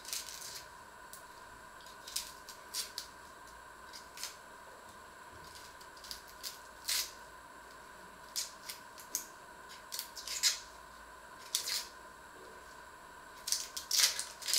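Dry, papery onion skin crackling and rustling as it is picked and peeled off with a small knife, in irregular short crackles that are loudest near the end. A faint steady high hum runs underneath.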